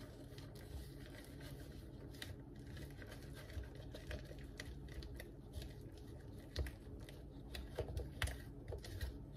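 Spatula stirring a thick confectioners' sugar and eggnog glaze in a glass measuring cup: faint, irregular tapping and scraping against the glass.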